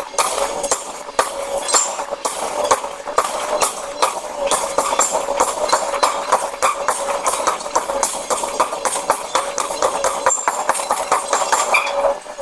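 Hammer blows on hot iron during forging, several strikes a second in an uneven rapid series, over a steady machine hum.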